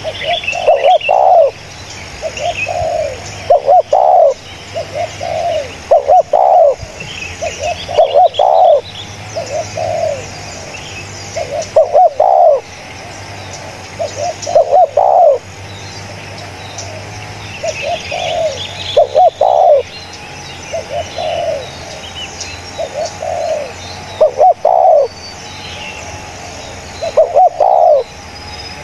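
Spotted dove cooing: phrases of several low, round coo notes, repeated every two to three seconds. Small birds chirp faintly and higher in the background.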